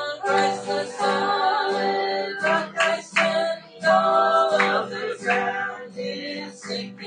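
Music: a woman singing, with steady held notes of accompaniment underneath.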